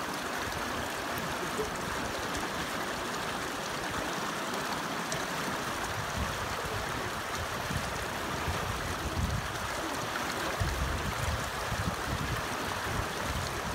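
Fast-flowing mountain river rushing over rocks, a steady wash of water noise. Irregular low rumbling joins it in the second half.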